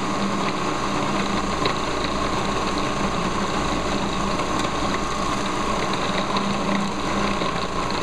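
Food processor motor running steadily, kneading samosa dough of flour, oil and water as it clumps and tumbles around the bowl. The dough is nearly done, just starting to come together into a ball.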